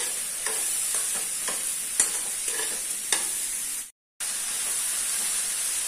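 Chopped ridge gourd sizzling in hot oil in a kadai while being stirred, with the spatula scraping and tapping against the pan about every half second. The sound cuts out briefly about four seconds in.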